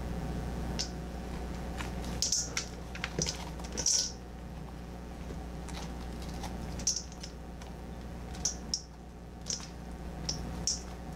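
Pie pumpkin being cored by hand, fingers scraping seeds and stringy pulp out of the halved shell: an irregular run of short, sharp scraping clicks, a few of them louder about two and four seconds in, over a steady low hum.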